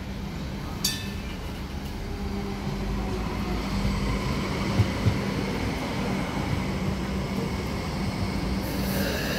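Hong Kong Light Rail Phase 5 light-rail train running at a platform: a steady low hum, with rumble building after a couple of seconds. A short metallic ring comes about a second in, two low knocks about halfway, and a hiss near the end.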